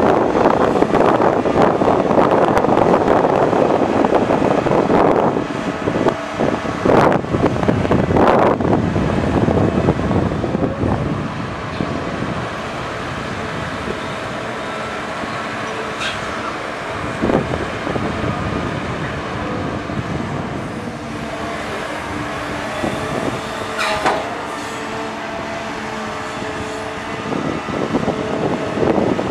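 CAT 320D hydraulic excavator's six-cylinder diesel engine and hydraulics working as it digs and swings loads of wet soil. The engine runs loud under load for the first few seconds, with a couple of knocks, then settles to a steadier hum with a few clanks as the machine swings to dump.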